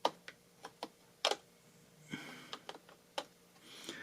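Light, irregular clicks and taps of small plastic laptop parts being handled and fitted together while ribbon cables are lined up during reassembly.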